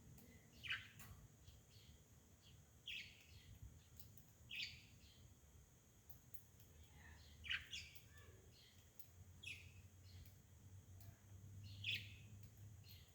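A bird chirping faintly: short, high, mostly falling chirps every second or two, over a faint low hum.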